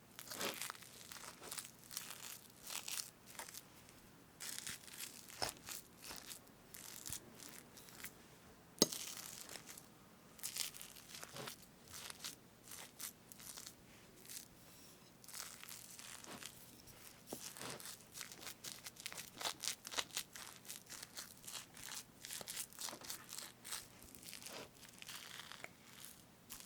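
Whipped cream on a strawberry cake being parted and scraped, close to the microphone: a dense, irregular string of soft strokes. A single sharp click about nine seconds in stands out as the loudest sound.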